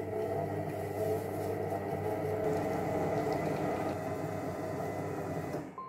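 Silvercrest Monsieur Cuisine Connect food processor running at speed 3 with its butterfly whisk, whipping eggs and sugar while heating them to 80 °C: a steady motor hum. The motor stops near the end.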